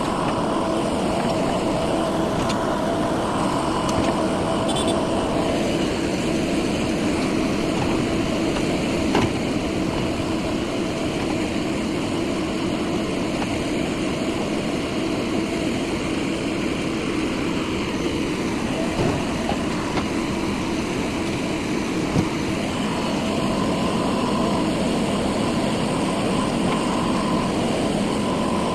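Diesel engine of a JCB 3DX backhoe loader working alongside a tractor, running with a steady drone, with a few short knocks.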